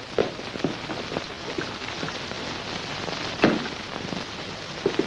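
A few footsteps about half a second apart, then a louder single thud about three and a half seconds in, over a steady hiss.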